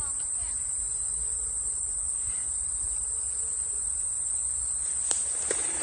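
Insects singing one continuous, steady high-pitched trill over a low rumble, with a single click near the end.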